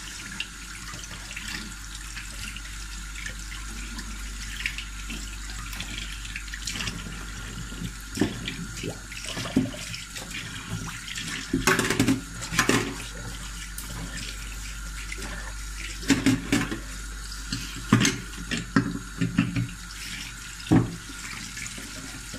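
Kitchen tap running steadily into a stainless steel sink while a bunch of radishes is rinsed under it by hand. Irregular louder splashes come from the handling, mostly in the second half.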